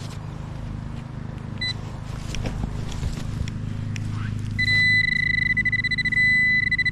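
Metal detecting gear sounding a high steady alert tone over a metal target: a short beep about one and a half seconds in, then from about four and a half seconds a loud continuous tone that pulses rapidly in stretches. A few knocks and a low steady hum underneath.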